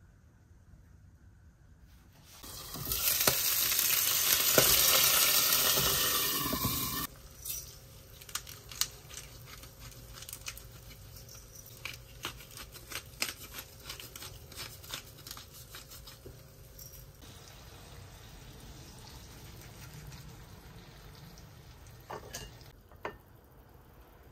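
Food frying in a hot pan. A loud burst of sizzling lasts about four seconds, then settles into a quieter crackle with scattered pops, and a faint hiss fades out near the end.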